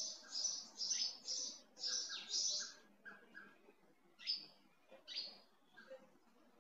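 Scratchy, squeaky strokes on a sheet of craft foam: a quick run of strokes about every half second for the first three seconds as a pen marks the foam, then a few sparser snips as scissors cut into it.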